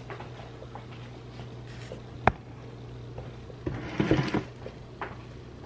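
A steady low hum, with one sharp click about two seconds in and a short bout of rustling and knocks around four seconds: someone handling things at a kitchen counter.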